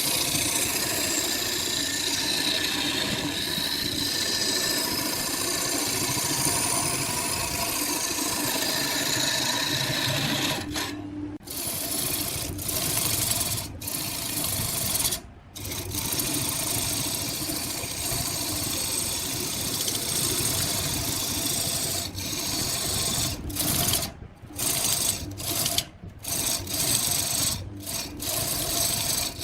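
Wood lathe running, with a hand tool scraping the spinning wood: a steady rasping over the motor's hum. It breaks off briefly a few times, more often in the last third.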